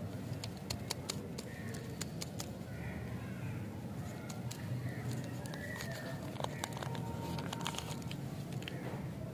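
Paper candy wrapper crinkling and tearing as it is peeled off a stick lolly, in scattered crisp crackles and clicks. Faint bird chirps sound now and then in the background.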